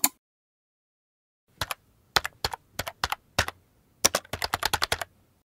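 Computer keyboard keystrokes. About six single clicks come roughly a third of a second apart, then a quick run of about ten, stopping a little after five seconds.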